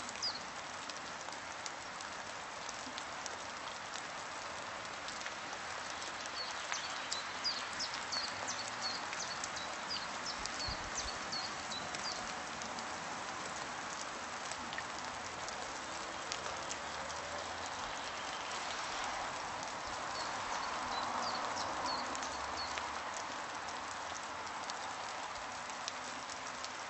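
Small birds chirping in quick, short high notes, in runs from about six to twelve seconds in and again around twenty seconds, over a steady even hiss.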